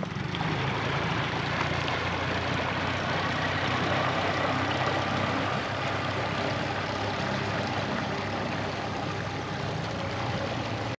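Small outboard motors on two canoes running steadily as the boats move off, a low engine hum, one of them a quiet four-stroke. The sound cuts off suddenly at the end.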